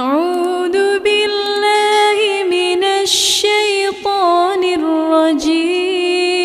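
A single reciter chanting Qur'an verses of ruqyah in slow melodic recitation, holding long ornamented notes with brief breaks about one and four seconds in.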